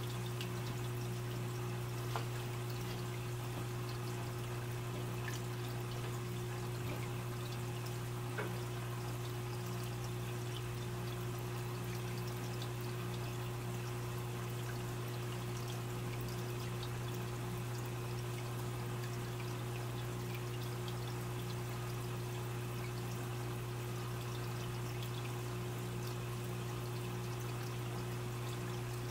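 Aquarium filter running: a steady trickle and splash of water over a constant low electrical hum from the pump, with two small ticks.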